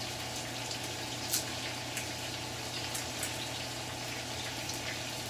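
Stovetop cooking noise: a steady hiss with scattered light crackling from the lit portable gas burner and the pan of pork and onions just starting to heat, over a low steady hum. There is one small knock about a second and a half in.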